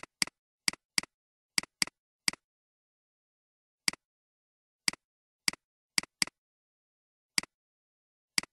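Computer mouse button clicking about fourteen times at an uneven pace, some in quick pairs like double-clicks, with each click a quick press-and-release tick.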